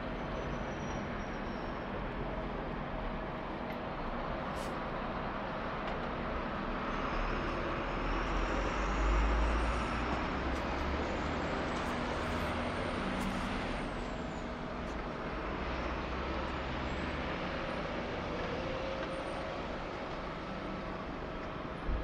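Road vehicle noise: a steady rumble of traffic or a vehicle engine that swells in the middle and eases off again, with a few faint high squeals.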